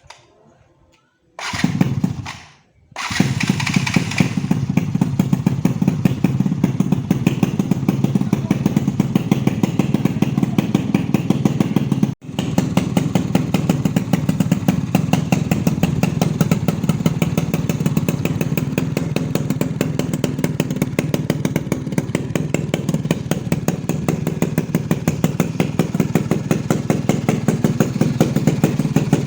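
Yamaha Alfa motorcycle engine starting: it catches briefly and dies away, then starts about three seconds in and runs steadily with an even, rapid exhaust pulse. The sound cuts out for an instant about twelve seconds in.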